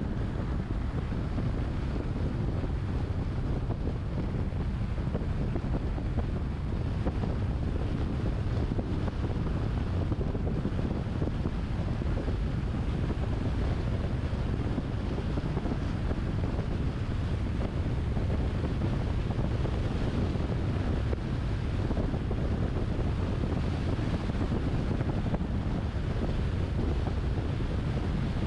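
Steady wind rush and low tyre-and-road rumble from a moving car, with wind buffeting the microphone.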